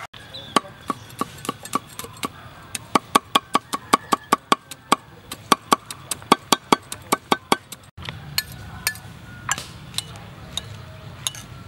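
A steel cleaver chopping red chillies on a wooden chopping block: rapid, even knocks, several a second, that stop about eight seconds in. A few lighter clinks of a metal spoon stirring in a ceramic bowl follow.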